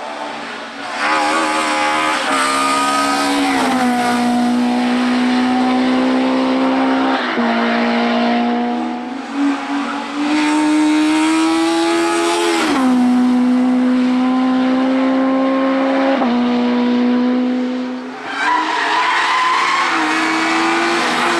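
Hill-climb race car engine at high revs under hard acceleration, its pitch climbing and then dropping sharply at each gear change, several times over.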